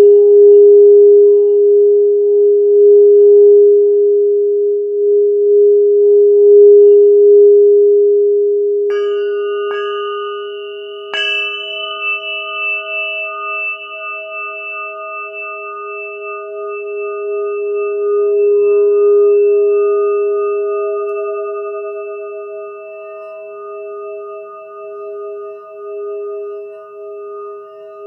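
Crystal singing bowl sounding one steady, pulsing ringing tone. About nine seconds in, a second, higher-pitched crystal instrument is struck three times in quick succession and rings on together with the bowl.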